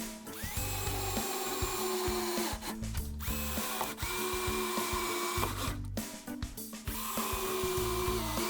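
Power drill running in three bursts of about two seconds each, each one spinning up at the start and winding down at the end.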